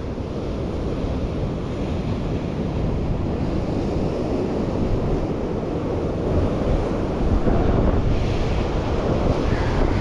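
Rough sea surf washing and breaking over shoreline rocks, with strong wind buffeting the microphone as a steady low rumble. The sound swells a little louder over the last few seconds.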